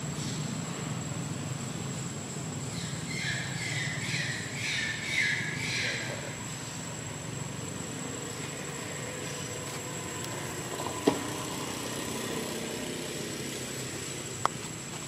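Steady outdoor background rumble with a short run of rapid, high, pulsed chirps from about three to six seconds in, and a sharp click near eleven seconds.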